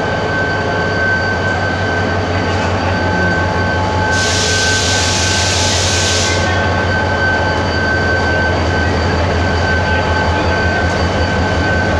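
Karachi Circular Railway passenger train at the platform: a steady low hum with a thin, steady high whine over it, and a loud hiss lasting about two seconds near the middle.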